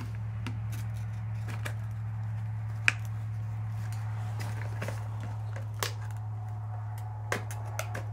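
Plastic blister packaging of a folding knife being handled, with scattered clicks and crackles and one sharp click about three seconds in, over a steady low hum.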